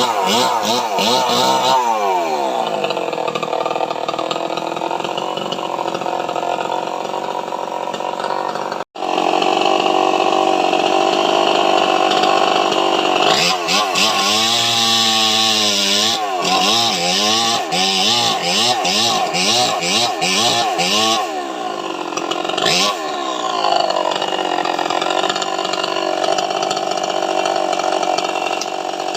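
Chainsaw cutting jackfruit wood at high revs, held steady for long stretches. About halfway through, the throttle is blipped up and down many times in quick succession before it settles back into a steady cut.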